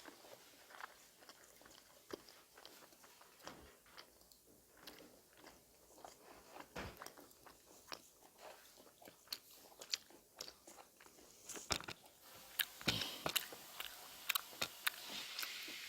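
A person chewing and crunching food close to the microphone, with many short wet clicks and smacks. About three-quarters of the way through, the eating sounds grow louder and come faster, over a steady hiss-like noise.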